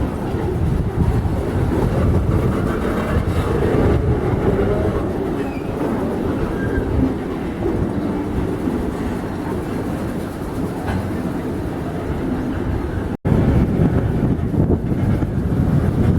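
Freight train passing on the rails: a steady rumble with the clatter of the wagons. About three-quarters of the way through it breaks off abruptly and gives way to louder, rough low noise.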